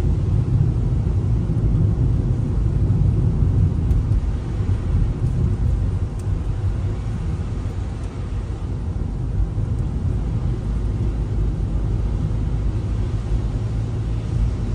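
Car driving on a wet, slushy road: a steady low rumble of tyres and engine.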